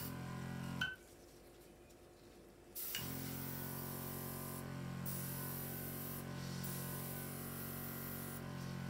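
Compressed air hissing from a hand-held airbrush-style nozzle fed by an air compressor hose, blowing wet acrylic paint across a canvas, with a low steady hum under the hiss. It gives a short blast of under a second, stops, then starts again sharply about three seconds in and blows steadily.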